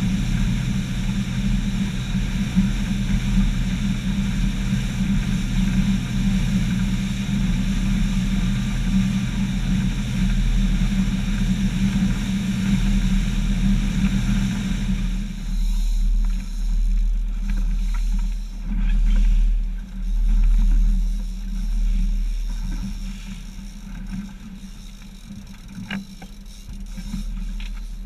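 Twin outboard motors driving a centre-console boat at speed: a steady engine drone with water and wind rushing past. About halfway through the throttle comes back and the rushing noise drops away suddenly, leaving the motors running slower, with a few swells of water noise before it settles quieter as the boat slows for trolling.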